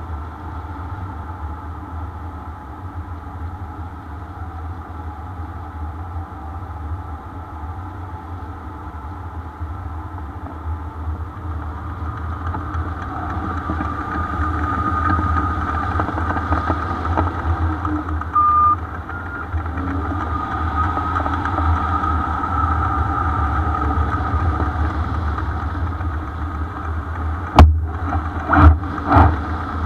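Airflow rushing over the microphone of a camera on a hang glider in flight: a steady low rumble with a wavering whistle-like tone, swelling louder in the middle. Several sharp knocks come near the end.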